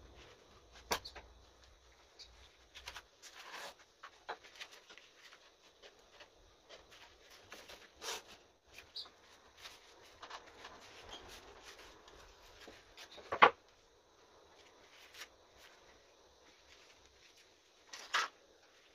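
Scattered knocks and clicks of objects being handled, a few seconds apart, the sharpest one about thirteen seconds in.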